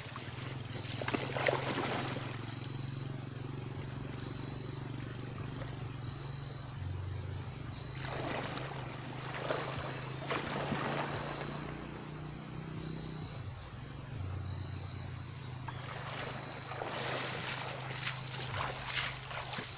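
Legs wading through shallow river water, splashing in several bursts, over a steady high-pitched insect chorus.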